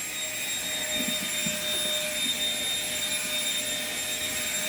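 Vacuum cleaner running steadily: an even rush of air with a steady high-pitched motor whine.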